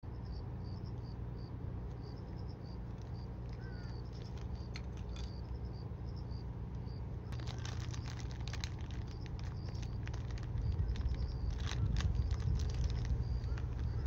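Crinkling and crackling of a foil tobacco packet from about halfway in, as the bowl of a long Japanese pipe (kiseru) is pushed into it and filled with tobacco. Under it run a steady low rumble and a faint, high, rapidly repeating insect chirp.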